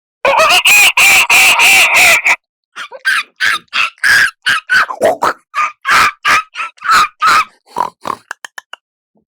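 Vocal mimicry of chickens. A fast cackle runs for about two seconds, then comes a run of separate clucks that grow shorter and quicker near the end.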